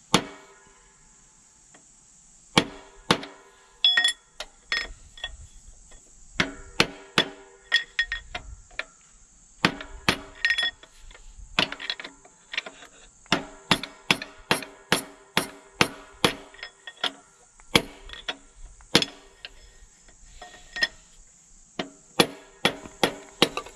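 Hand hammer striking a drift to drive a stuck piston and rod out of a Ford big-block V8's cylinder bore. Dozens of sharp blows, scattered at first and then steady at about one to two a second, some leaving a short metallic ring.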